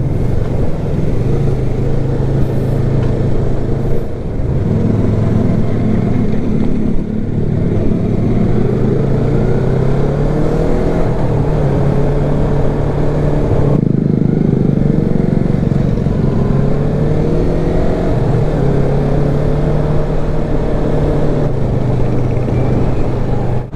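Yamaha YZF-R3's parallel-twin engine running under way, its pitch climbing as it accelerates and dropping at each gear change, over a steady rush of wind and road noise.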